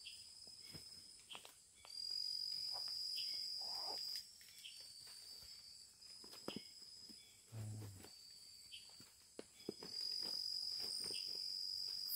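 Insect calling: a steady high trill that comes in spells of about two seconds, loudest about two and ten seconds in. Faint clicks and ticks are scattered throughout, and there is a short low thud about seven and a half seconds in.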